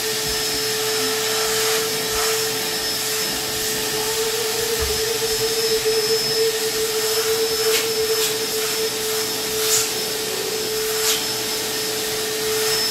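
Stanley stainless-steel wet/dry shop vacuum running steadily with a constant whine as its hose sucks debris out of a couch base. The pitch wavers in the middle, and a few sharp ticks come through in the second half.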